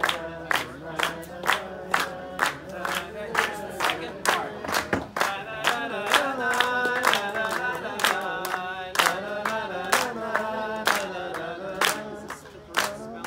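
A group singing a wordless Jewish wedding melody together while clapping in time, about two claps a second. The singing grows fuller about five seconds in.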